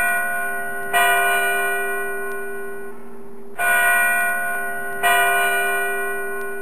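A single church bell struck three times at uneven intervals. Each stroke rings out and dies away slowly, and the ring of an earlier stroke is still fading at the start.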